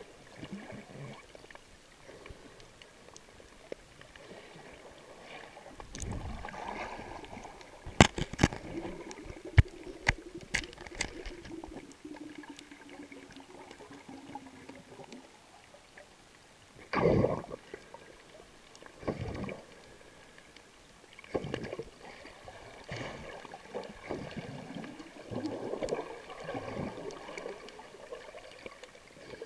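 Underwater sound picked up by a camera below the surface: water sloshing and gurgling around the camera in bursts, with a cluster of sharp clicks about eight to eleven seconds in.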